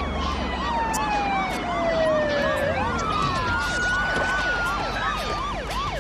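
Several police car sirens sounding together. One is in a fast yelp, swooping about three times a second. Others wail in long slow glides, one falling steadily and one rising and then holding, over a low steady rumble.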